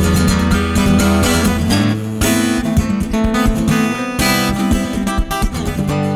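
Solo steel-string acoustic guitar played fingerstyle: plucked notes ringing over a low bass line, with several sharp, hard-struck attacks among them.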